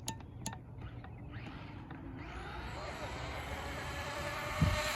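Traxxas Maxx brushless electric RC monster truck running a long wheelie: its motor whine and tyre noise build up about two seconds in, rising slowly in pitch and getting louder as it comes closer. A louder low rumble comes in near the end.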